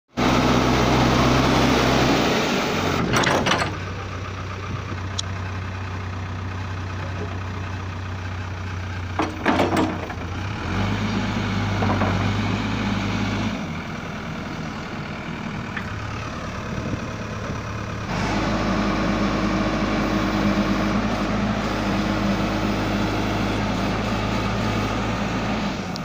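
JCB 3DX backhoe loader's diesel engine running, its note getting louder and quieter in stretches of a few seconds as it works. Two sharp knocks come about three and nine seconds in.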